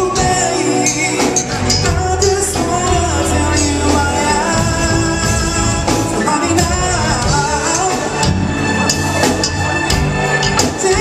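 Live R&B band playing: a male singer over drums, electric guitar and bass guitar.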